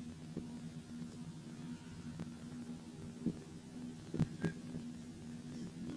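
A few sharp thuds of a football being kicked on the pitch, the loudest about four seconds in, over a steady low hum.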